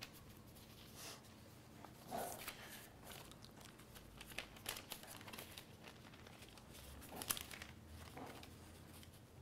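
Faint, scattered rustling and crinkling over quiet room tone, the loudest rustle about seven seconds in.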